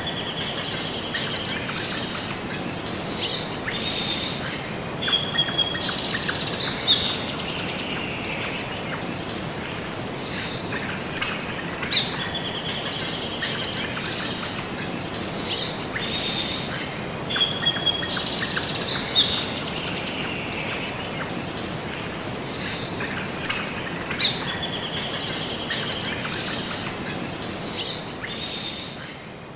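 Birds chirping and trilling over a steady hiss of background noise. The same stretch of birdsong repeats about every 12 seconds, as in a looped ambience recording.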